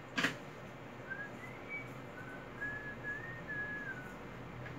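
A person whistling a slow tune, a string of held notes that slide from one to the next. A sharp click of handling sounds just after the start.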